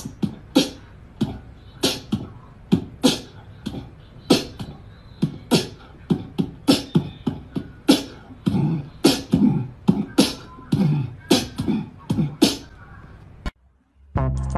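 Beatboxing-like rhythm of sharp mouth-percussion hits with low thuds, about two to three a second, cutting off suddenly about a second before the end.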